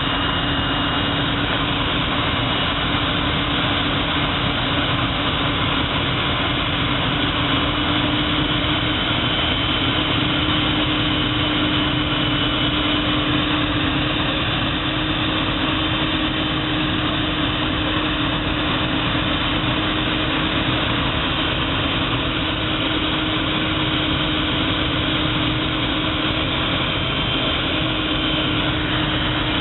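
Automatic profile blasting machine running steadily with corundum abrasive as a long profile is fed through on its belt feed: an even, unchanging loud noise with a constant hum underneath.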